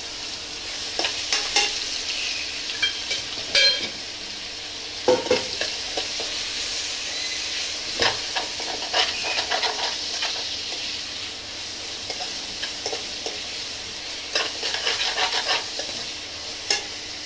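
Sliced onions sizzling in oil in a kadhai, with a spoon stirring them and now and then scraping and knocking against the pan.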